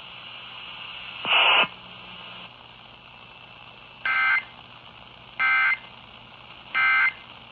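Emergency Alert System end-of-message code: three identical short two-tone data bursts, evenly spaced about 1.3 seconds apart, over steady radio hiss. These bursts mark the end of the flash flood warning just read. A single louder burst comes about a second and a half in.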